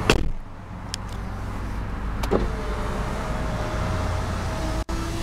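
A click, then over a low steady rumble the Mini Cooper Clubman S's electric window motor whines at a steady pitch for about two and a half seconds, starting about two seconds in and stopping abruptly.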